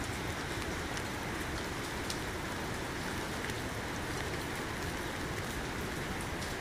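Steady rain falling on wet ground, an even hiss with scattered drop ticks.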